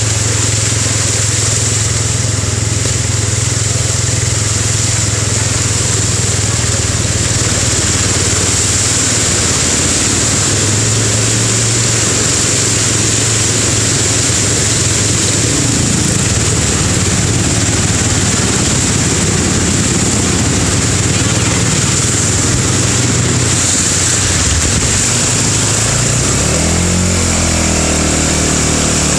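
A motorcycle engine running steadily through flood water on a road, with a constant rush of splashing water. About three seconds before the end the engine rises in pitch as it revs up.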